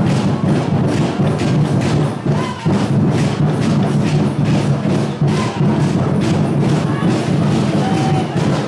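Loud music with a heavy, steady drumbeat.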